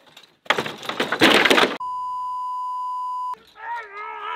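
A loud clattering burst, then a steady single-pitch censor bleep lasting about a second and a half, then a high wavering voice-like sound near the end.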